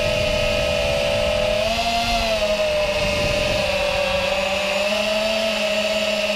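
Racing quadcopter's four 2207 2300KV brushless motors spinning 5-inch tri-blade props: a steady, high-pitched whine that rises slightly about two seconds in, sinks again, and rises once more about five seconds in as the throttle changes.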